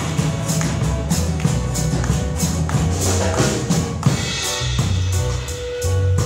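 Small live band playing an instrumental passage: guitars over a drum kit keeping a steady beat with bright cymbal strokes.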